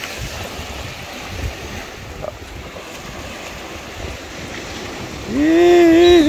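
Small surf waves washing up the sand, with wind on the microphone. Near the end a loud held, pitched call lasts about a second.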